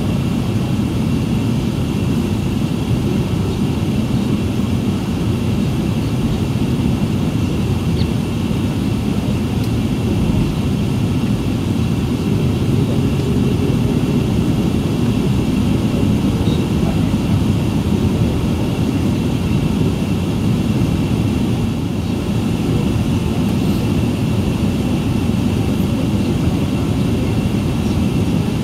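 Steady low rumble inside the cabin of an Airbus A380 as it taxis, with a thin, steady high whine over it.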